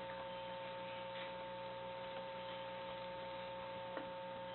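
Steady electrical hum with two constant high tones over faint hiss, and a faint tick about four seconds in.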